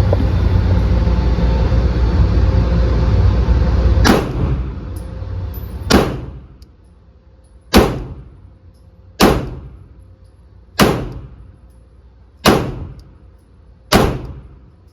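Pistol firing slow, evenly spaced single shots, about one every second and a half, seven shots in all starting about four seconds in, each shot ringing out with a short echo. Before the first shot there is a steady low rumble.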